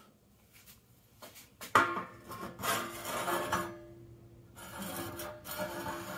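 Metal-on-metal handling on a workbench: a sharp knock just under two seconds in, then scraping and light clacks as a combination square's steel rule is laid and slid across steel frame rails.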